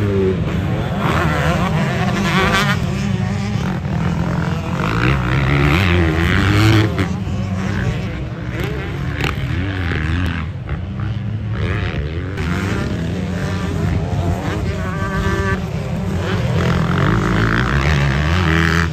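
Several motocross dirt bikes revving around the track, their engine pitch rising and falling as riders open and close the throttle and shift through the gears.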